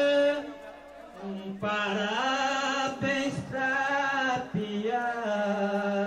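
A man's voice chanting an improvised verse in the drawn-out, held-note style of a maracatu rural sambada, with a short break about a second in before the next sung line.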